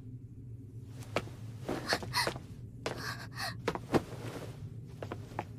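Short breathy gasps, with a few sharp clicks, the loudest a little before four seconds in, over a low steady hum.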